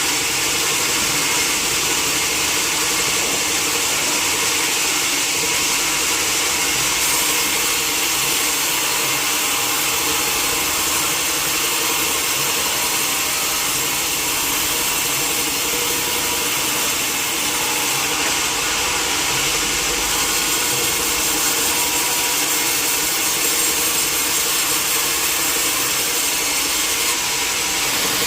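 Sawmill saw running steadily and cutting through a teak log, with a constant grinding hiss and the machine's engine running underneath.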